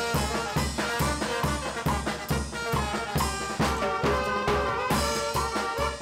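Wind band music: saxophone and brass over a steady drum beat.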